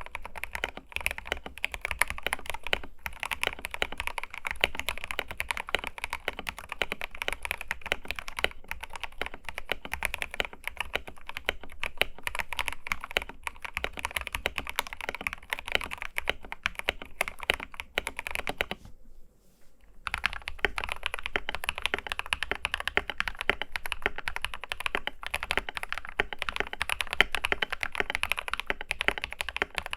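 Fast continuous typing on a modded TM680 mechanical keyboard fitted with Akko linear switches. It is a dense run of keystrokes that stops for about a second roughly two-thirds of the way through, then resumes.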